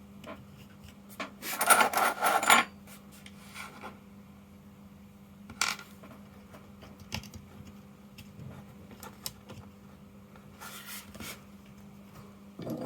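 Small hard objects clattering and rattling, loudest in a burst between about one and a half and two and a half seconds in, then a single sharp click and a few more light clicks later, over a steady low hum.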